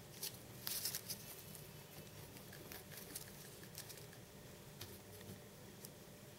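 Faint handling noises: small clicks and rustles of fingers and a plastic ink cartridge on a paper sheet. A short cluster of clicks comes in the first second, then scattered single ticks.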